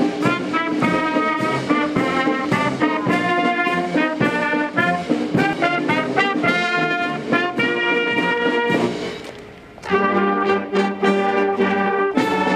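Marching wind band playing a march: brass, saxophones, clarinets and flutes over a steady beat of about two strokes a second. The music fades out about nine seconds in and comes back on a different passage a second later.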